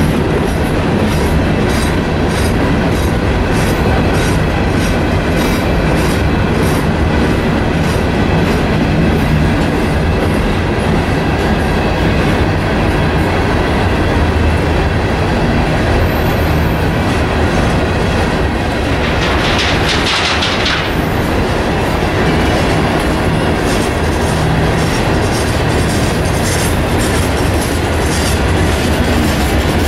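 A freight train of Herzog ballast hopper cars rolling past close by: a steady rumble of the cars with a regular clickety-clack of the wheels over the rail joints. A short rushing noise cuts in for about two seconds roughly two-thirds of the way through.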